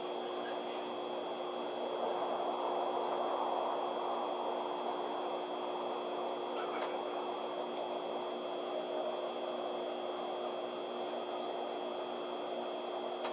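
Cabin noise of a Tokaido Shinkansen train running at speed: a steady rumble with a steady high whine and a lower hum over it.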